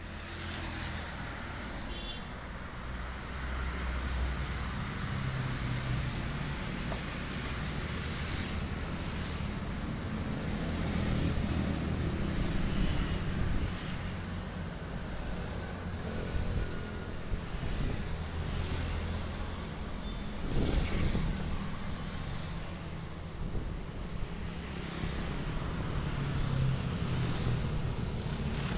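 Road traffic running by in a steady low rumble, louder twice as vehicles pass close.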